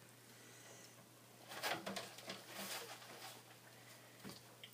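Faint rustling and soft handling noises, mostly through the middle, with near silence around them.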